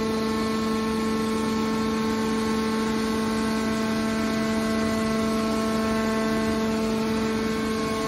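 Hydraulic power unit of a scrap metal baler running under load, a steady even-pitched whine with a low hum, as the pump drives the cylinder that closes the press lid.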